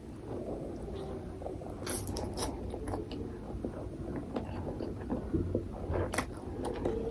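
Close-miked chewing of instant ramen noodles, with wet mouth noises and a few sharp clicks over a low steady hum.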